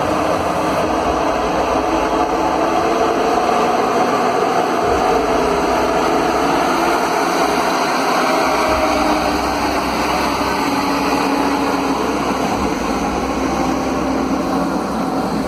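Heavy logging truck's diesel engine running steadily, with a slowly shifting engine note.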